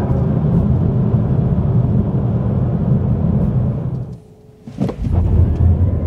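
Cabin noise of a Mini Cooper SE electric car at about 110 km/h: a steady low tyre and road rumble on winter tyres. About four seconds in it drops away briefly, then the car pulls away again from low speed, with the rumble returning and the electric motor's rising whine starting near the end.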